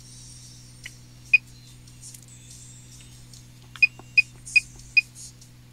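Handheld OBD2 scan tool (Konnwei KW818) beeping as its menu buttons are pressed: a single short high beep about a second in, then four quick beeps in a row near the end. A steady low hum runs underneath, the car's diesel engine idling.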